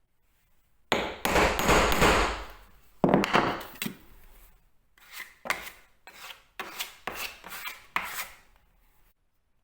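Tool work on wood: a long loud scraping rub, a shorter scrape, then a run of about eight sharp taps.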